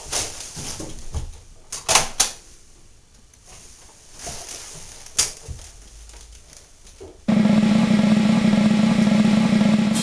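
A snare drum roll starts suddenly about seven seconds in and runs loud and steady until it cuts off abruptly. Before it come a few scattered knocks and clicks.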